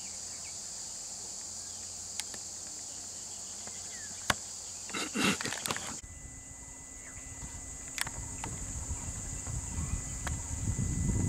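Insects droning steadily in high pitch in the roadside forest, with a few sharp clicks and a brief loud rustling burst about five seconds in. After about six seconds a low rumble builds up under the insects toward the end.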